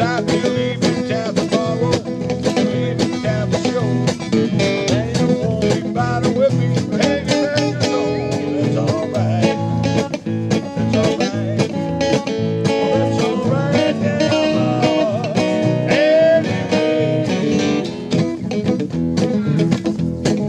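Acoustic guitar music with fast picked and strummed notes, played without a break.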